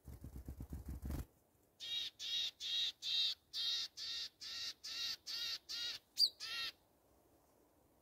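A black-capped tit gives about a dozen harsh, buzzy calls in an even series over some five seconds, with one short high whistle near the end. Before that, for about the first second, there is a quick fluttering of its wings as it flies off close by.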